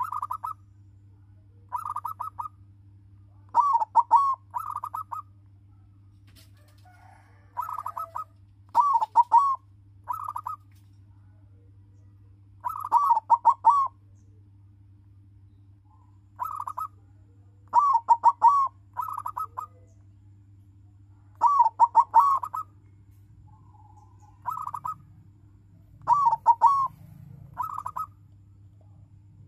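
Zebra dove (perkutut), a bred silver-coloured local bird, cooing its rhythmic song in bouts of several quick notes, each bout about a second long and repeated every few seconds. This is the male's song (manggung) used as a lure to set other perkutut singing. A faint steady low hum runs underneath.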